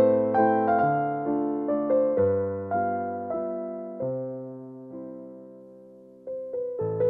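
Background piano music: a gentle melody of struck notes that each fade away. It thins to one long dying note about four seconds in, then picks up again near the end.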